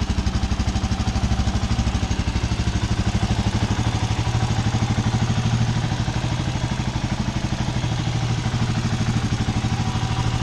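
Motorstar Cafe 400 motorcycle engine idling steadily, its exhaust beating in a rapid, even pulse.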